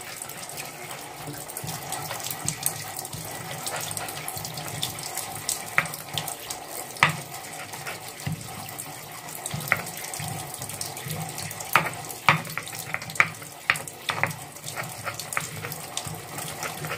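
Stone pestle grinding and mashing sambal of fried eggplant, tomato and chili in a stone mortar (ulekan and cobek): a continuous wet scraping with irregular sharp knocks of stone on stone, more frequent in the second half. The paste is being worked toward smooth.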